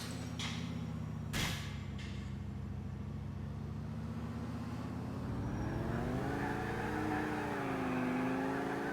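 Video-game car engine running steadily, then revving up and down from about six seconds in, with a sharp knock about a second and a half in.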